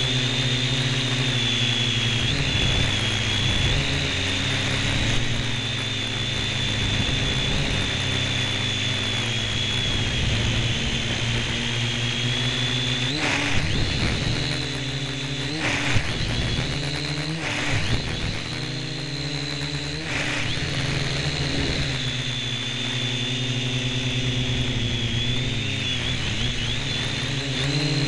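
Syma X1 toy quadcopter's four small electric motors and propellers whining steadily, heard from a camera mounted on the drone itself. The high whine wavers in pitch as the throttle changes, and a few short bursts of noise come about halfway through.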